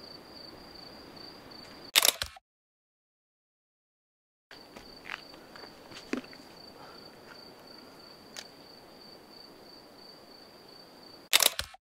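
Camera shutter firing twice, about two seconds in and again near the end, each a short cluster of sharp clicks, with the sound cutting out dead after each. Behind it a cricket trills steadily at a high pitch.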